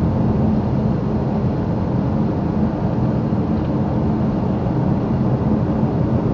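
Steady drone of a car's engine and tyres on the road, heard from inside the cabin while driving.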